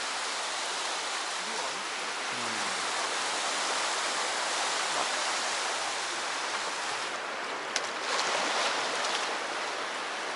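Steady rush of sea surf washing against the shore, with a couple of short ticks about three-quarters of the way through.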